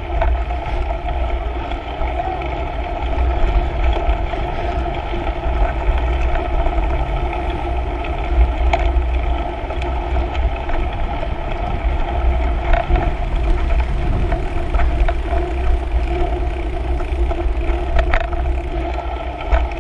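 Mountain bike rolling fast along a dirt forest trail, picked up by a handlebar-mounted camera: steady low wind rumble and tyre noise, with a few sharp knocks from the bike over bumps.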